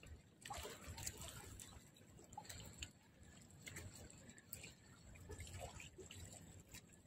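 Faint water lapping and splashing at the shoreline in small, irregular splashes, over a low rumble.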